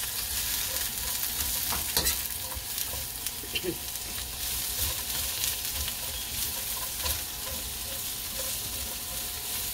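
Carrot and broccoli-slaw strips sizzling in oil in a wok, stirred and tossed with a metal spatula that scrapes and clicks against the pan now and then.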